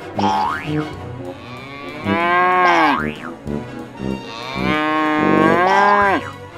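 Cow mooing twice in long, drawn-out calls, the second longer, over background music with short repeating notes.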